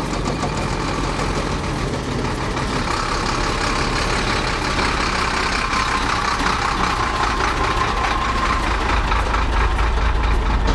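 Heavy diesel engines of construction machinery running steadily with a continuous rumble.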